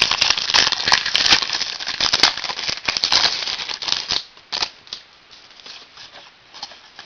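A stack of trading cards being handled and flipped through quickly: a dense run of crackly clicks and rustles for about four seconds, then lighter, sparser card handling.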